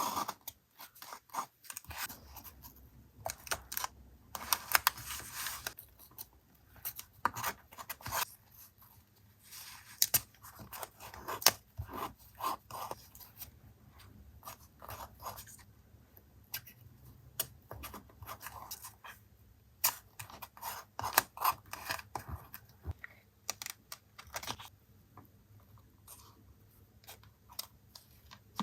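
Close-up paper collage work: irregular rustling and sliding of paper with small clicks and snips, in short spells separated by quiet gaps.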